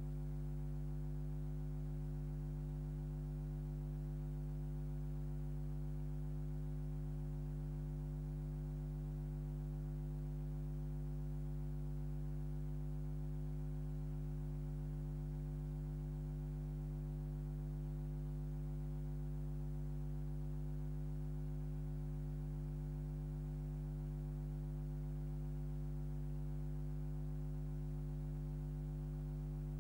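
Steady electrical mains hum: a low, unchanging buzz with a stack of overtones.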